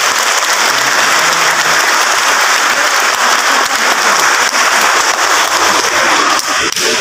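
Congregation applauding, a steady dense clapping from many hands.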